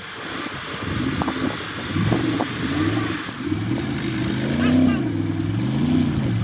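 Pickup truck's V8 engine revving up and down under load while towing a semi-truck tractor out of snow on a strap. The pitch rises and falls several times, starting about two seconds in.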